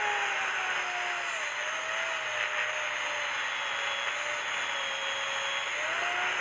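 An electric power tool running with a steady hiss and a whine whose pitch sags and recovers, as if it is bearing down under load.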